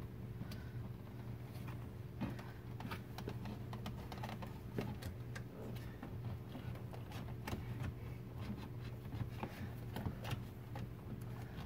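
Scattered clicks and light knocks of plastic centre-console trim and wiring being handled and worked loose, over a steady low hum.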